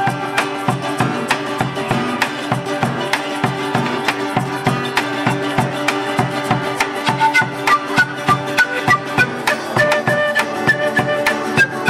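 Andean folk ensemble playing: charango and guitar strumming a fast, even rhythm while an Andean cane flute plays a melody of short notes, settling into held notes near the end.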